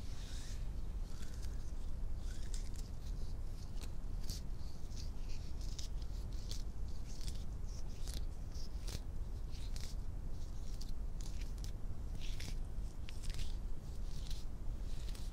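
Hand sounds made with long manicured fingernails: scratching and brushing in short, irregular strokes, with a few sharp clicks.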